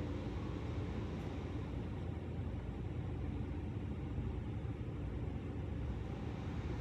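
Steady low rumble of a car's cabin: road and engine noise from a car on the move.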